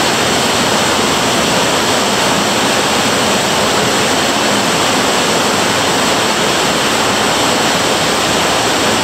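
Underground stream rushing over rocks in a cave passage: a loud, steady rush of water.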